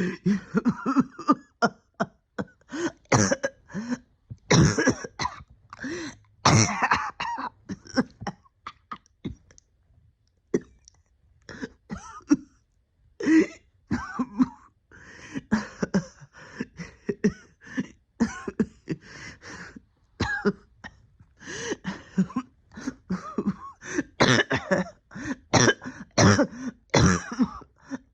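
A person coughing in repeated fits of short coughs, with a pause of a few seconds a little before halfway. It is a lingering cough from an illness that has left their breathing not right for about a year.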